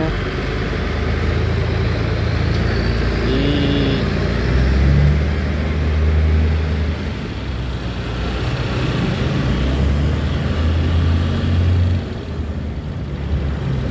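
Car engine and road noise heard from inside the cabin while driving in slow city traffic: a steady low rumble that swells twice as the car pulls forward.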